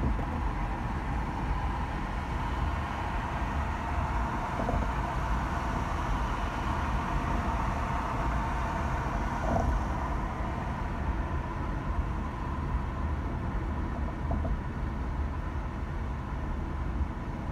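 A car being driven: steady road and tyre rumble with engine hum, and a few faint ticks.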